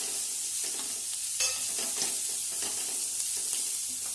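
Chopped green beans and carrots sizzling in hot oil in a pan as they are stir-fried, a steady hiss with scattered scrapes and taps of the stirring utensil against the pan. The loudest tap comes about a second and a half in.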